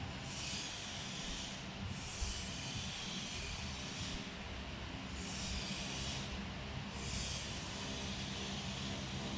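Solder flux sizzling against the hot soldering iron while solder is fed onto a wire, in hissing spells of a second or two that stop and start, over a low steady hum.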